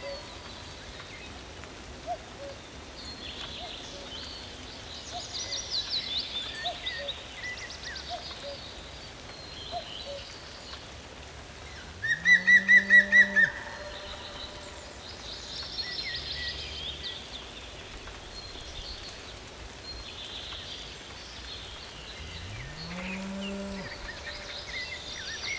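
Cattle mooing twice, long low calls about twelve seconds in and again near the end, with songbirds singing trills at intervals. The loudest moment is a quick run of about eight sharp, high notes just after the first moo.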